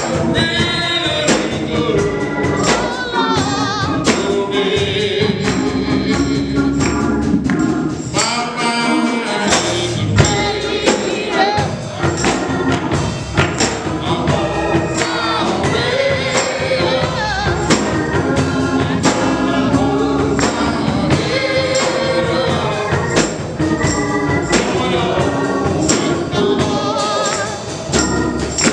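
Gospel choir singing with live accompaniment, a percussive beat, likely tambourine, struck at an even pace.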